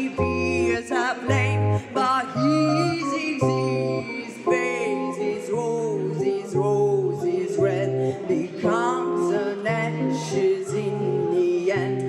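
Live song with an electric keyboard playing regular low bass notes and chords, and a woman singing a long, wavering vocal line over them.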